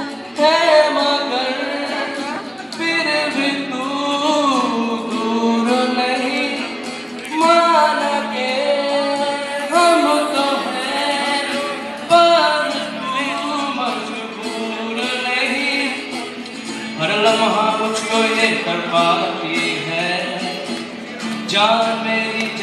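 A male vocalist singing live into a microphone over acoustic guitar, in long held and gliding phrases that break off every few seconds.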